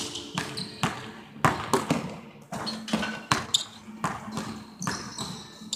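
Basketball dribbled on a hardwood court, about two bounces a second at an uneven pace, each bounce echoing around a large gym.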